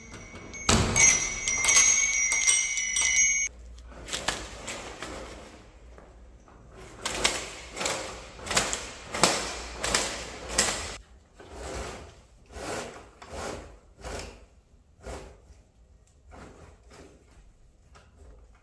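Small brass door bells jingle and ring for about three seconds as a glass shop door is pulled open. Then come short rasping strokes about every half second, slowly growing fainter: venetian blinds being drawn up by their cords, hand over hand.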